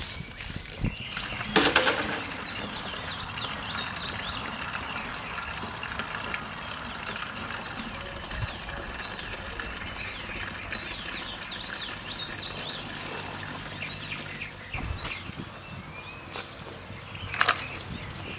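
Birds chirping and calling in quick, scattered short notes against steady outdoor background noise. A loud knock or clatter comes about a second and a half in, and another near the end.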